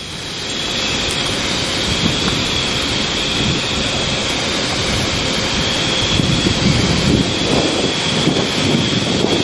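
High-pressure water washing of the stadium roof: a steady rushing hiss with a faint, even high whine over a fluctuating low rumble.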